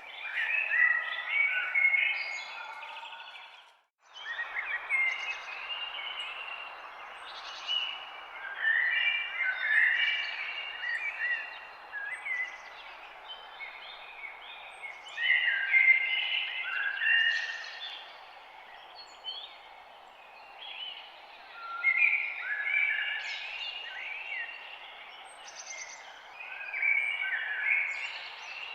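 Several songbirds chirping and singing in overlapping phrases over a steady background hiss of forest ambience. The whole sound cuts out for a moment about four seconds in, then resumes.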